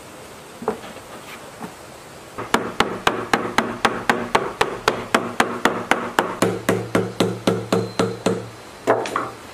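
Small hammer tapping gasket paper against the edge of a metal machine housing to cut out a gasket: a few scattered taps, then a quick, even run of about four taps a second for some six seconds, the later ones ringing with a low hum from the casting. Two louder knocks near the end.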